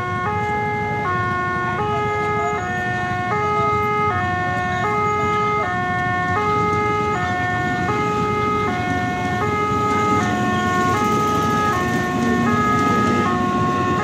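Railway level-crossing warning alarm: an electronic two-tone signal alternating between a higher and a lower pitch about every two-thirds of a second, sounding while the barriers are down for a train. Underneath is the rumble of a passing electric commuter train, which grows louder near the end.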